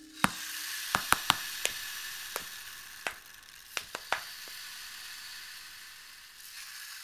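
Crackling hiss: a steady high hiss with about ten sharp, irregular clicks and pops in the first half, then hiss alone.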